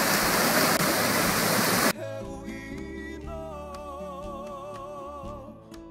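Loud roar of a waterfall pouring down close to the microphone, cut off abruptly about two seconds in. Music with plucked acoustic guitar and a wavering held melody follows.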